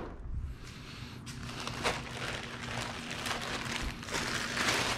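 Clear plastic bag wrapped around an aluminium radiator crinkling and rustling as it is handled, with many small crackles that grow louder near the end.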